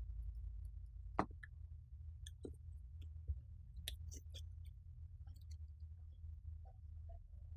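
Scattered small clicks and taps of tools handling a power-supply circuit board during soldering work, over a steady low hum. The sharpest click comes about a second in.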